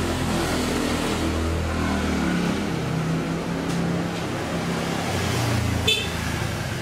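Passing road traffic, low engine rumble rising and falling, with a brief vehicle horn toot about six seconds in.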